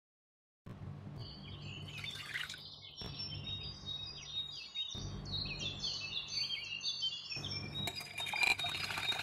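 Small birds chirping and twittering over a low steady hum, which breaks off and resumes at a few edits. Near the end, a utensil stirring milk in a glass bowl adds light, quick clinks.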